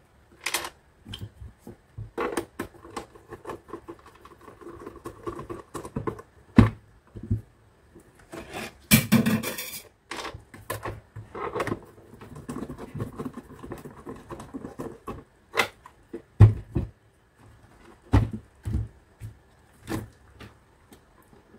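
Plastic blender base being handled, closed up, turned over and set down on a table: scattered clicks, knocks and dull thumps of the plastic housing, with a loud rustling scrape lasting about a second about nine seconds in.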